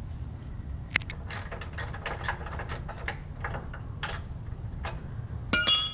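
Hand tools working on metal: a sharp click, then a run of irregular clicks and scrapes, and a loud ringing metal clank near the end.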